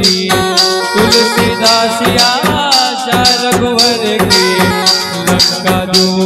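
Instrumental break in a live Rajasthani bhajan with no singing: held melody notes over a steady, fast percussion beat.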